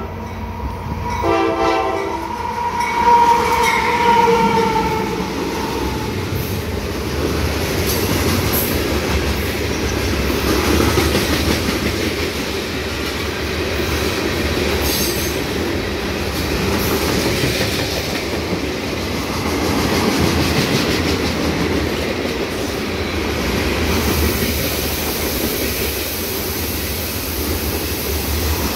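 CSX freight train passing close by: a horn blast near the start that fades over the first few seconds, then the steady noise of loaded hopper cars rolling past on the rails.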